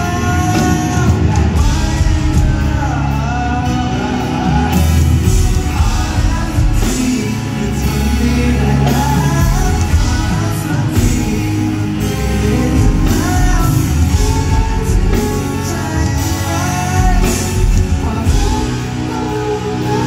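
Live rock band playing a song with a lead singer over electric guitars, bass and drums, heard from the audience in a large hall; cymbals and the top end fill in about five seconds in.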